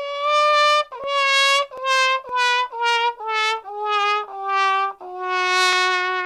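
A brass instrument plays a descending run of about eight short notes, each one a step lower, ending on one long held low note.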